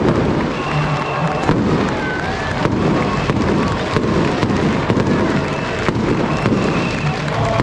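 Firecrackers going off in a rapid, irregular string of sharp cracks over a steady din.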